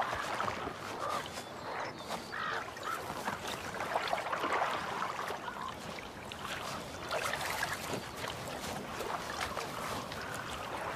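Grizzly bear splashing through icy pond water as it hauls a drowned bison carcass, with irregular sloshing and splashes.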